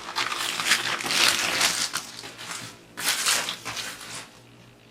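Plastic packaging crinkling and rustling as the parts of a toy rifle are unwrapped, in two stretches of handling that die down about four seconds in.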